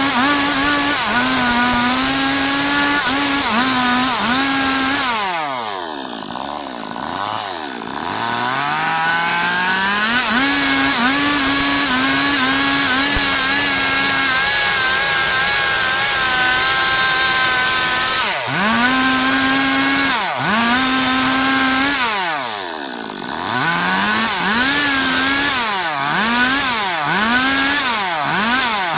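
Stihl MS 382 two-stroke chainsaw running at high revs while cutting a log into boards, its engine note sagging under load and recovering. Twice it falls off toward idle and revs back up, and near the end it is revved in quick repeated blips, about one a second.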